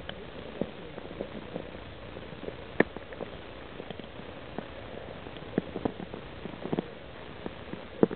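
Small splashes and sloshes of shallow stream water as a trout is held in the hand and released, over the steady rush of the stream; the splashes come irregularly, a sharper one about three seconds in and another near the end.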